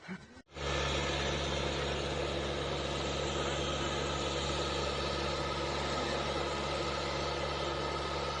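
A heavy engine running steadily under a loud rushing noise. It starts abruptly about half a second in and holds an even level throughout.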